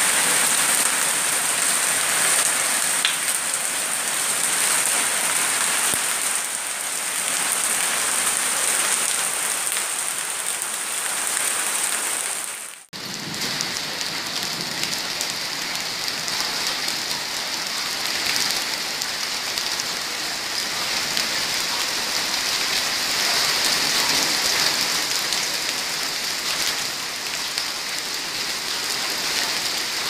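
Heavy rain mixed with hail pelting paved ground, a dense steady hiss. It breaks off for an instant about thirteen seconds in, then resumes slightly lower in pitch.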